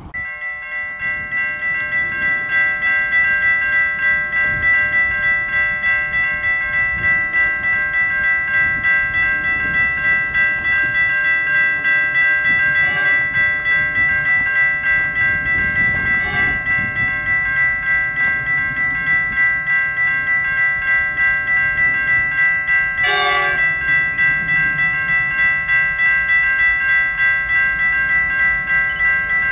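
Level crossing warning bells ringing steadily with a fast pulsing rhythm, about twice a second. An approaching freight train's diesel locomotive sounds short horn blasts under the bells, faintly a couple of times and most plainly about 23 seconds in.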